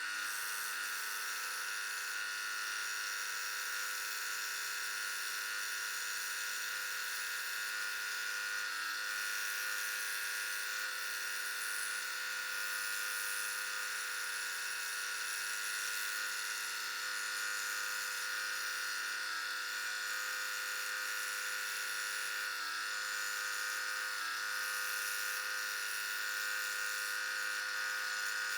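Scroll saw running steadily, its new blade cutting thin Baltic birch plywood, a continuous even buzz with no breaks.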